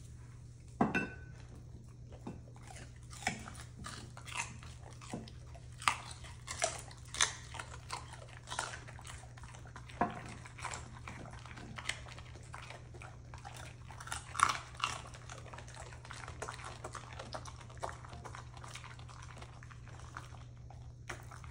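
Dogs crunching and chewing pieces of raw yellow carrot: irregular sharp crunches, coming in quick clusters at times, with a brief sharp sound about a second in.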